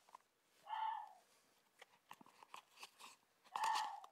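An animal calling twice, about three seconds apart, each call short (about half a second), with faint clicks in between.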